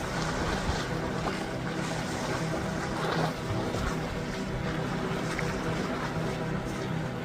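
Steady low engine drone, holding one pitch throughout, over a constant hiss.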